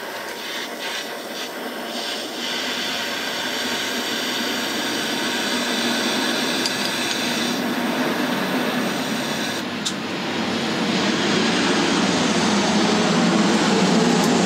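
Steady rushing air from a small electric fan or blower, gradually getting louder, with a brief dip about ten seconds in.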